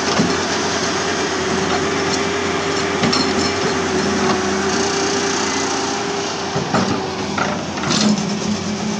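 Halla HE130W wheeled excavator's diesel engine running under hydraulic load with a steady whine while its bucket dumps soil into a tractor trolley. Several knocks and clatters from the bucket and the falling soil come in, most of them in the last few seconds.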